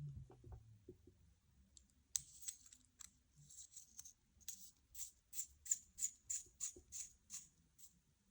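Small, sharp clicks of a titanium pen's push-button click mechanism being worked over and over, a few scattered at first, then a steady run of about three clicks a second. The pen is being clicked without its refill inside, so the mechanism does not catch properly.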